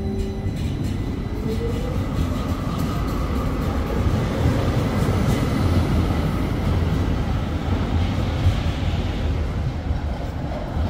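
Tram running on its rails with a steady low rumble. About a second in, an electric motor whine rises in pitch as the tram picks up speed.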